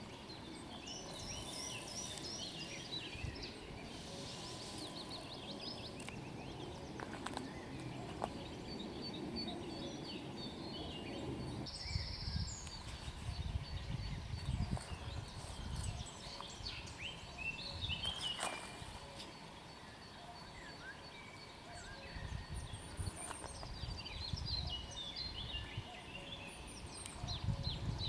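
Wild birds singing and calling, several short chirps and trills, over a low rumble of outdoor background noise; the sound changes abruptly about twelve seconds in, as one field recording gives way to another.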